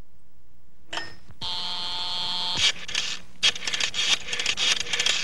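Cartoon telephone sound effects: a click, a short steady buzzing dial tone about a second and a half in, then long runs of rapid clicking as a number is dialled.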